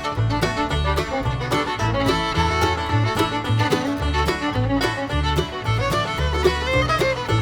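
Upbeat bluegrass-style background music with fiddle, banjo and a steady bass line.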